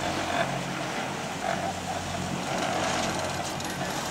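Chairlift running, with a steady low machinery hum.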